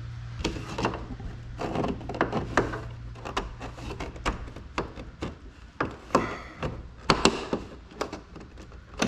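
Irregular clicks and light knocks of a thin tool and fingers working around a Lippert screwless RV door window frame, pressing in to release its hidden retaining clips.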